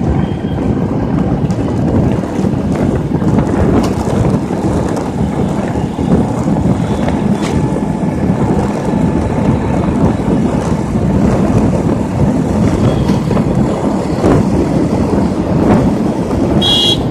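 Wind rushing over the microphone of a moving motorcycle, with engine and road noise beneath it in a steady loud roar. A short high-pitched beep sounds near the end.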